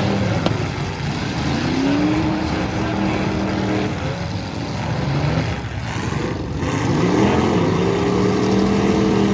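Several big demolition derby cars' engines running hard and revving, their pitch climbing about two seconds in and again near seven seconds in, with one sharp knock about half a second in.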